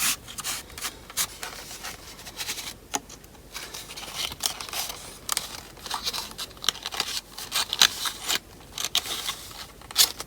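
Paper manuals and cardboard packaging being handled: irregular rustles, scrapes and sharp clicks.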